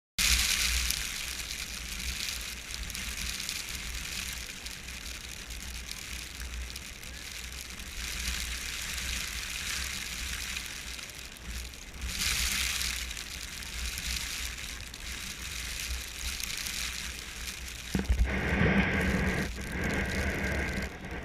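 Snowstorm wind buffeting the microphone, with a steady crackling hiss of blowing snow; near the end the noise turns louder and rougher.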